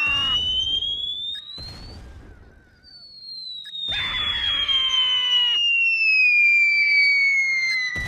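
Cartoon falling sound effect: a whistle tone rising in pitch, then after a short gap a long whistle sliding steadily down in pitch. About four seconds in, a short burst of downward-sliding tones plays over it.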